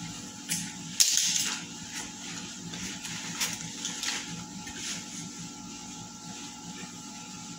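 Handling noises from unpacking a stainless aftermarket motorcycle exhaust muffler: a sudden loud rustle of the foam packaging about a second in, then a few light knocks and scrapes as the muffler is lifted out and turned in the hands.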